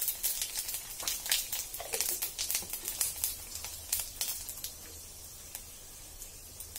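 Cumin seeds crackling and popping in a hot iron kadhai: a rapid run of sharp crackles that thins out after about four and a half seconds, leaving a faint hiss.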